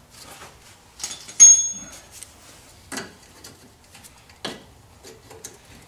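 Scattered sharp metallic clicks and clinks as a metal brake line retaining clip is worked loose and pulled from its bracket by hand. The loudest is a sharp click about a second and a half in, with a brief ring, and lighter clicks follow around three and four and a half seconds in.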